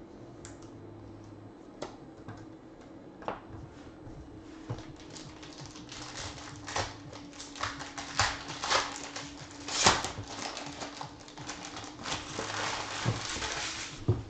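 Foil trading-card pack being crinkled and torn open by hand: a few light clicks of cards being handled, then crackling in bunches from about five seconds in, loudest around ten seconds.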